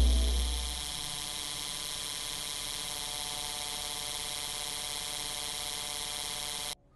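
A steady buzzing hum with a high hiss over it, cutting off suddenly near the end. A deep low drone fades out during the first second.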